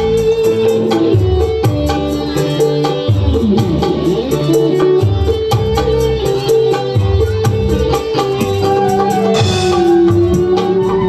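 Live band music: electric guitars and a bass guitar playing over a steady, regular beat, with a melody line that bends in pitch a few seconds in.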